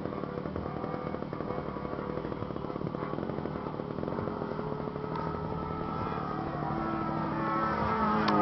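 Engine of a radio-controlled aerobatic model airplane running as it flies a manoeuvre. Its note rises and grows louder over the last couple of seconds.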